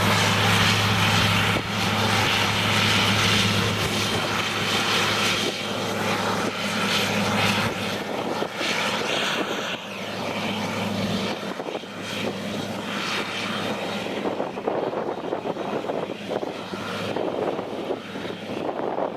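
An engine running steadily with a low hum over a rushing hiss, easing off a little in the second half.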